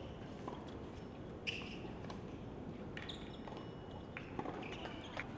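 Tennis rally on a hard court: several sharp racket-on-ball hits, the clearest about one and a half seconds in, with short high squeaks between them.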